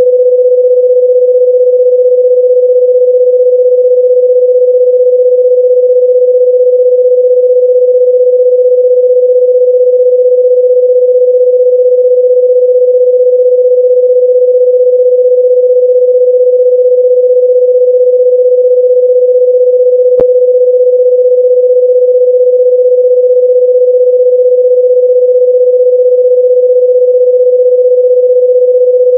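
A loud, steady, pure electronic tone held at one mid pitch without any change, played as an annoying sound. A faint click comes about two-thirds of the way through.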